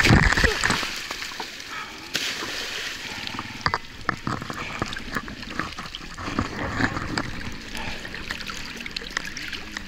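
Muddy stream water splashing and sloshing around a fallen dirt bike and rider, with scattered sharp splashes and trickling. A loud jumble of noise from the fall into the water dies away in the first second.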